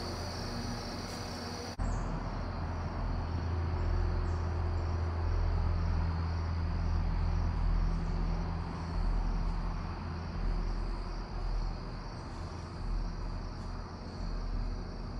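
Crickets and other insects chirring steadily, under a low rumble that gets louder about two seconds in.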